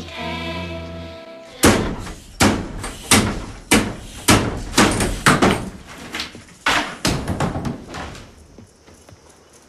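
Sustained music stops about a second in. Then come a dozen loud, uneven knocks or bangs, about two a second, each ringing briefly, ending about eight seconds in.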